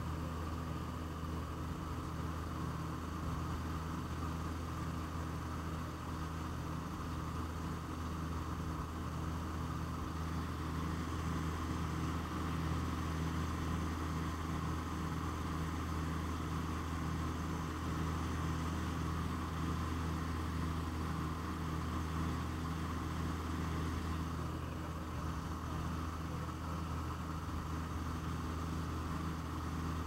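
Steady cabin drone of the L-26B Aero Commander's twin piston engines and propellers in cruise flight, heard from the cockpit.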